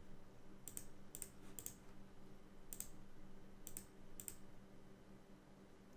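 Faint, sharp computer mouse clicks, six of them at uneven intervals over the first four and a half seconds, over a faint steady low hum.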